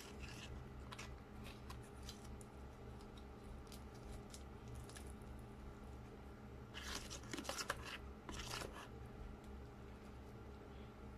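Metal spoon scraping and clicking against an aluminium foil tray and a sheet of nori as baked sushi is scooped out. There are a few light clicks, then a louder cluster of scraping and crinkling between about seven and nine seconds in, over a low steady hum.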